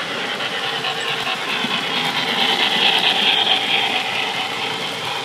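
HO-scale model freight train rolling past on its track, with a steady rattling clatter of the wheels and cars. It swells to its loudest about halfway through.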